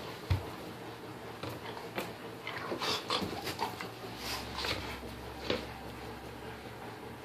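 English cream golden retriever puppy playing on its back on a hardwood floor, mouthing and pawing at a stuffed toy: a string of short scuffs, knocks and mouthing noises, with a sharp thump about a third of a second in.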